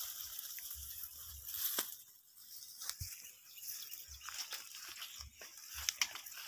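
Dry sticks and palm leaves rustling and crackling as they are gathered up and carried, with scattered sharp snaps and a few dull thumps.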